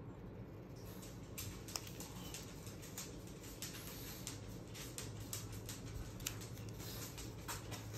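Small craft scissors snipping through stamped cardstock in short, irregular cuts, fussy cutting around a stamped image.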